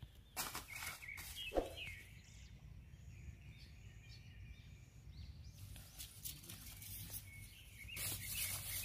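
Quiet open-forest ambience: scattered crackles and rustles of feet in dry leaf litter, with faint bird calls.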